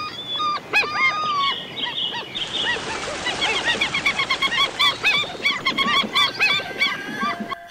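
A flock of birds calling: many short calls that rise and fall, overlapping and growing denser about two seconds in, over a steady hiss. A held musical note comes in near the end.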